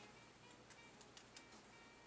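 Near silence, with a few faint light clicks of hard 3D-printed plastic gear parts being handled and fitted together.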